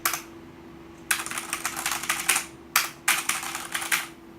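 Typing on a Noppo Choc Pro mechanical keyboard with Cherry Brown switches: quick runs of key clicks and clacks in several bursts with short pauses between them.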